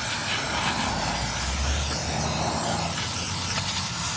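Aerosol can of silicone spray hissing steadily as it is sprayed over a gate opener's control board.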